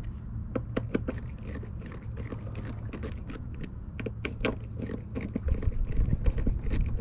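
Screws being hand-tightened to draw a clamshell vent cover down onto a cabin side: many small irregular clicks and scrapes. Wind rumbles on the microphone, louder from about five seconds in.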